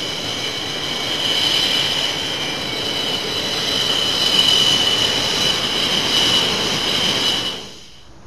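MiG-31's twin Soloviev D-30F6 turbofan engines running at taxi power as the interceptor rolls along the runway: a steady high turbine whine over a jet rush. It cuts off suddenly near the end.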